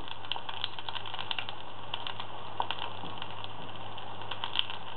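Hot oil sizzling with an irregular crackle of small pops where the open end of a green pepper, stuffed with an egg-and-mushroom filling, is pressed upright into a nonstick frying pan. The filling is searing to seal the opening.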